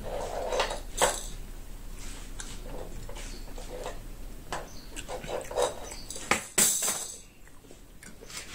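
Close-up eating sounds of rice and stew eaten by hand: chewing and mouth sounds with scattered light clicks. A brief, louder burst of noise comes about seven seconds in.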